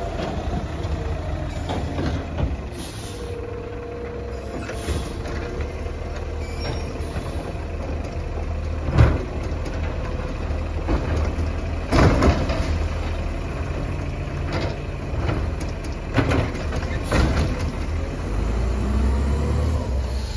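Mack LEU CNG garbage truck running at the curb while its Labrie Helping Hand automated arm lifts and dumps a recycling cart, with a hydraulic whine early on and several sharp bangs as the cart is emptied and shaken into the hopper, the loudest about nine and twelve seconds in. Near the end the engine revs up as the truck pulls away.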